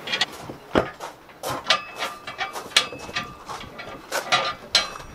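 Car scissor jack being worked inside a welded steel bracket to spread it back out: irregular metallic clicks and clinks, some ringing briefly.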